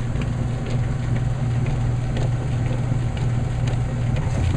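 Kenmore 80 Series washing machine agitating on its slow setting, the motor and agitator drive making a steady low hum with faint ticks. Near the end the hum drops in pitch as the setting changes.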